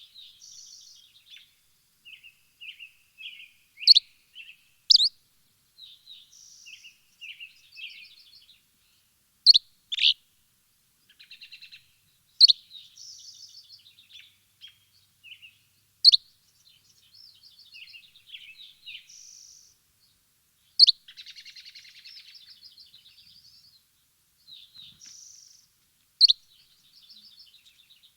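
Birds chirping: loud, sharp, falling chirps every few seconds over softer twittering and short trills.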